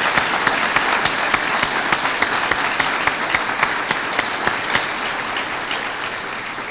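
Audience applauding, many hands clapping steadily and dying away near the end.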